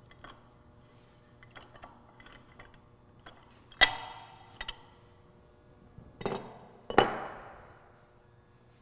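Metal valve parts and a hand tool clinking and tapping together: light clicks and taps, then two sharp ringing metal clinks about four and seven seconds in, each ringing away over about a second.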